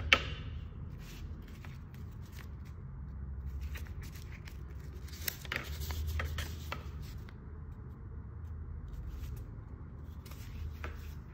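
Packaging being handled: a sharp click at the start as the USB cable is set down in the plastic tray, then paper crackling and rustling as a folded leaflet is unfolded about halfway through, over a low steady hum.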